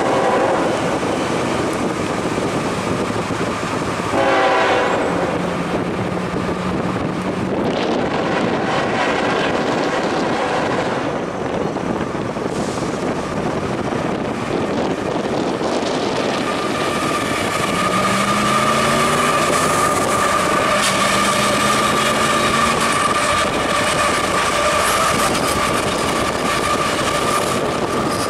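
CSX freight train's diesel locomotives sounding the horn briefly at the start and again about four seconds in, then approaching and passing, their engine note rising. A steady high tone joins about halfway through.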